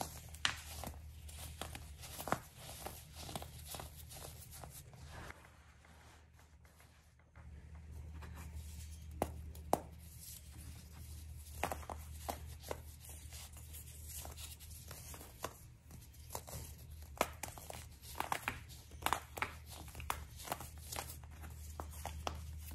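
Hands squeezing and crumbling dyed baking soda: irregular soft crunches and crackles, with a quieter pause about six seconds in. A steady low hum runs underneath.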